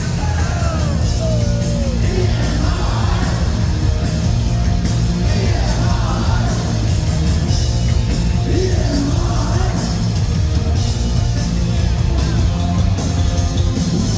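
Punk rock band playing live and loud, with a singer yelling the vocals over the band.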